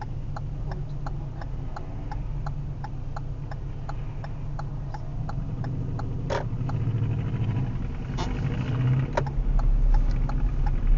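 Car indicator relay ticking at about three clicks a second over the low drone of the engine and road noise inside the cabin. There are a few sharper knocks around the middle, and the drone grows louder near the end.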